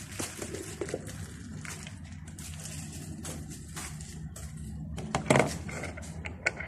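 Clear plastic bowl and blade assembly of an electric meat grinder being handled and fitted together. Light plastic clicks and knocks run over a steady low hum, with one louder knock a little after five seconds in.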